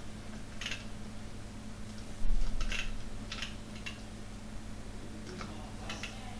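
Scattered clicks of a computer mouse in a few short clusters, with a dull thump about two seconds in, over a steady low electrical hum.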